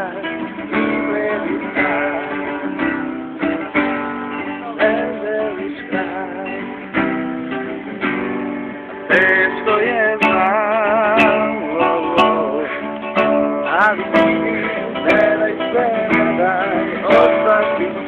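Acoustic guitar strummed in a steady rhythm. From about halfway through, a voice sings over it with a wavering vibrato.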